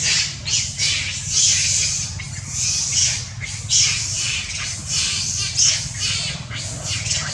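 Harsh squawking animal calls, repeated irregularly several times a second, over a steady low background rumble.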